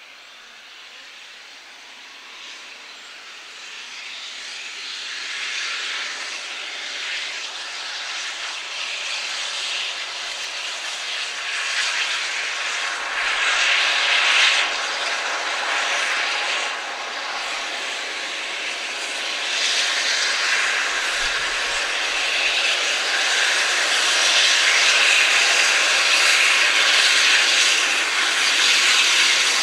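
GWR Castle-class four-cylinder 4-6-0 steam locomotive No. 5043 Earl of Mount Edgcumbe working hard at the head of a train, its exhaust and running noise growing steadily louder as it approaches, with a few stronger surges.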